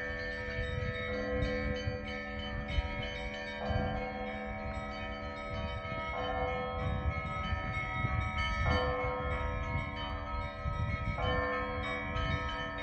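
Russian Orthodox monastery bells ringing: several bells of different pitches sound together in a pattern that repeats about every two and a half seconds.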